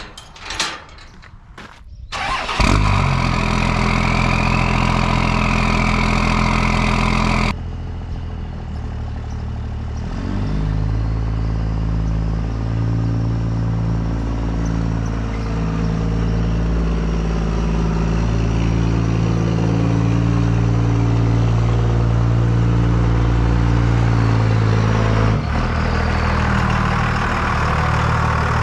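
A Kubota BX compact tractor's three-cylinder diesel starts up after a few clicks about two seconds in and runs. Its engine speed rises around ten seconds in, and it then runs steadily.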